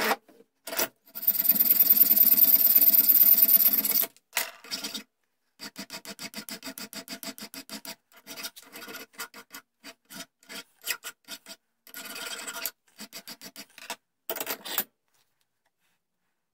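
Hand file scraping a small metal part clamped in a bench vise. First comes a few seconds of fast, continuous strokes, then a steady run of about five strokes a second, then slower, uneven strokes that stop about fifteen seconds in.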